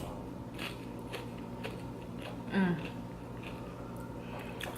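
Close-up chewing and crunching of loaded nachos, with scattered crisp crackles of tortilla chips being bitten. A short vocal sound comes about two and a half seconds in.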